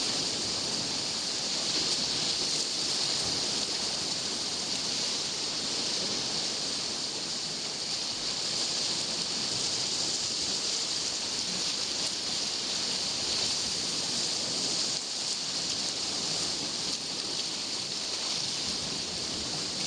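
Sea surf washing on a rocky shore: a steady hiss that gently swells and eases, with no distinct splashes.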